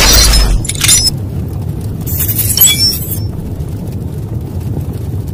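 Sound effects for an animated logo intro. A deep boom at the start cuts off about half a second in, followed by a sharp hit near the one-second mark. A hissing swoosh with a bright sparkle comes around two to three seconds in, then a low rumble fades away.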